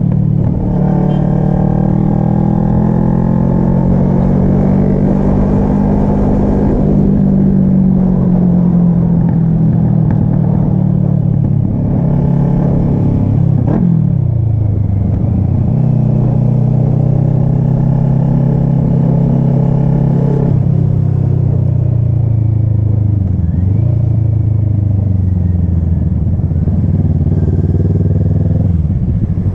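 Kawasaki ER-6n's parallel-twin engine running under load while the bike is ridden. The pitch climbs slowly with the revs and falls away sharply several times as the rider shifts or rolls off the throttle.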